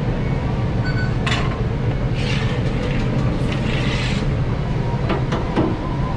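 Steady low hum of commercial kitchen equipment, with a metal scraper rasping across the flat steel grill plate twice, about two and four seconds in, and a few sharp clicks of the tool near the start and end.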